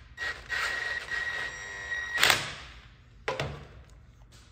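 Cordless impact wrench running a ring gear bolt down on a differential carrier, its motor whining steadily for about two seconds, then a short, very loud sharp burst as the bolt seats. About a second later comes one sharp knock.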